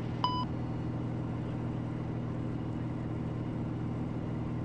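Steady drone of a Piper Malibu's piston engine and propeller, heard in the cabin in cruise. A short electronic beep sounds about a quarter second in.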